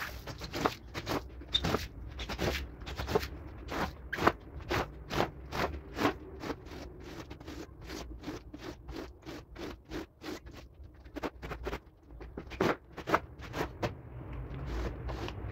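A rug being scraped or scrubbed with a hand tool in quick repeated strokes, about two a second, with brief pauses about ten and twelve seconds in.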